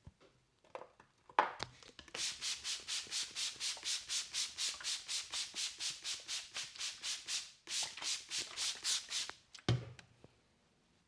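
Brisk rhythmic rubbing on the face, about four to five scratchy strokes a second, in one long run and then a shorter one after a brief break. A sharp knock comes just before the rubbing starts, and a dull thump comes just after it stops.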